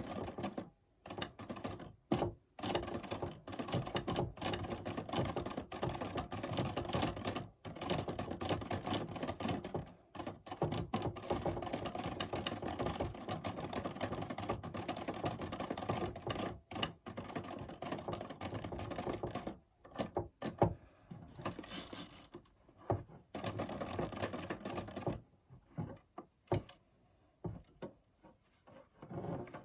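1967 Smith-Corona Corsair manual typewriter being typed on: quick runs of key strikes broken by short pauses, thinning to a few scattered strikes near the end.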